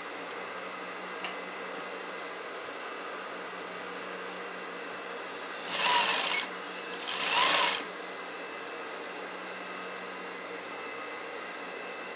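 Sewing machine stitching through layered coat fabric in two short runs of about a second each, half a second apart, over a steady background hum.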